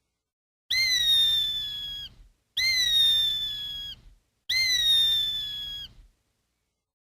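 Hawk screaming three times, each scream about a second and a half long, jumping up sharply in pitch and then sliding slowly down, with a short gap between them.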